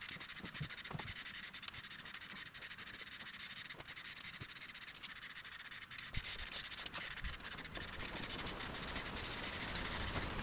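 Aerosol spray can of Eastwood Rust Encapsulator Plus hissing steadily as it is sprayed onto bare steel, with brief breaks in the spray.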